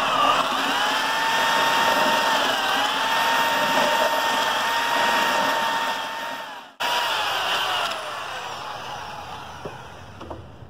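Electric drill driving a paddle mixer through a bucket of mortar tinted with red pigment: a steady motor whine that stops briefly about two-thirds of the way through, then runs again and winds down with falling pitch near the end.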